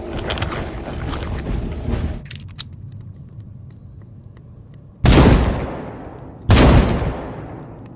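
Two sniper rifle shots about a second and a half apart, each a sudden loud crack with a long tail dying away. Before them, a rougher noise ends about two seconds in.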